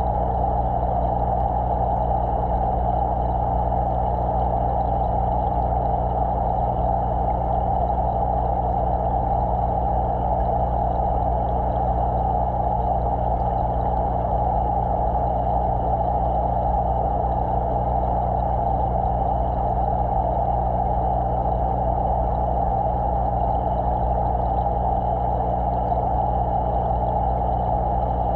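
Aquarium water-circulation equipment heard underwater inside the tank: a steady low hum under a constant rushing noise.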